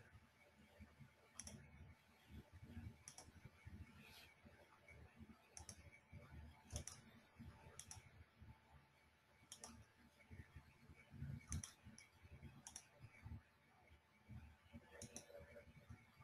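Near silence with faint, scattered clicks, about a dozen, irregularly spaced.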